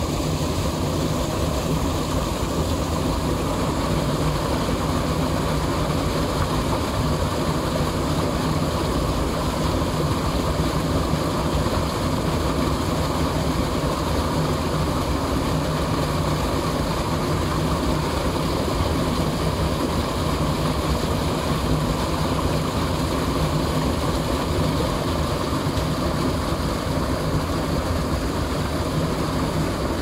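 Small stream rushing down a narrow stone-lined channel, the water churning white over a drop: a steady, unbroken rush, heaviest in the low end.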